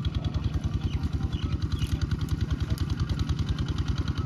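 A small engine running steadily at idle, with a rapid, even chugging.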